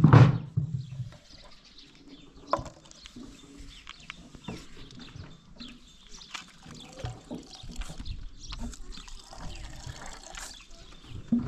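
Clear liquid poured from a plastic bottle into a tin of orange paint, splashing and trickling, most steadily near the end, with light clicks and scrapes of a stick stirring paint in a plastic container. A brief loud thump at the very start.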